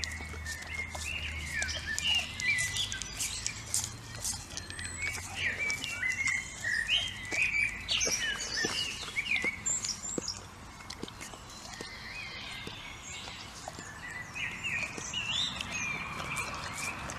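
Small birds chirping and twittering in quick short calls, busiest in the first ten seconds, with scattered soft clicks.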